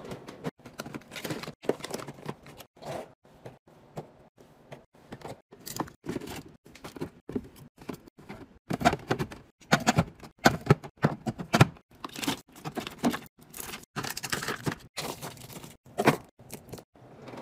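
Small drink cartons and wrapped snack packs being set and dropped into clear plastic bins in a refrigerator drawer: a fast, irregular run of clicks, taps and knocks, busiest about nine to twelve seconds in.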